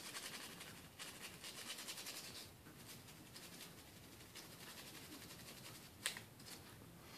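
Faint, rapid scrubbing strokes on a small phone part being cleaned with isopropyl alcohol, easing off about two and a half seconds in. A single sharp click about six seconds in.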